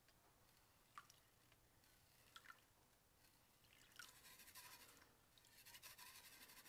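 Faint water sloshing and small rocks rattling in a plastic gold pan being dipped and swirled in a tub of water. There are a couple of light clicks, then from about four seconds in a longer stretch of soft swishing and fine rattling.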